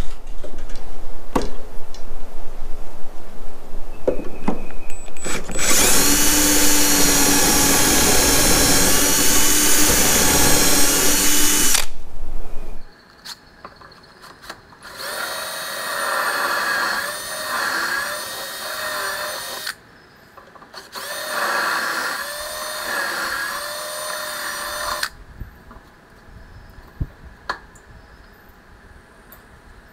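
Cordless drill boring dowel holes into the end of a wooden tabletop through a Rockler Beadlock drilling jig. A few clicks and knocks of the clamped jig being handled come first, then a steady run of about six seconds. About halfway through come two shorter runs whose pitch wavers as the bit cuts, and a few clicks near the end.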